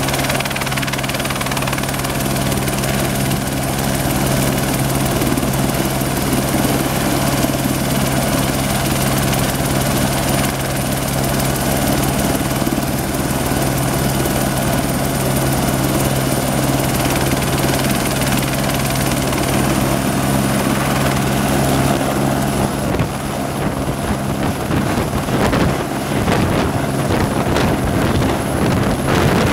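Écureuil light helicopter running on the ground, with a steady turbine whine and rotor hum. About 23 seconds in, the steady hum gives way to a rougher, pulsing rotor sound and the high whine edges up, as power builds just before lift-off.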